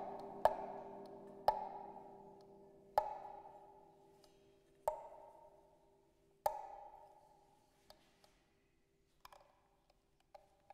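Struck percussion in a free improvisation: five single strikes, each ringing out, coming ever further apart and fainter as the playing winds down, over a faint steady tone. A few faint light taps follow near the end.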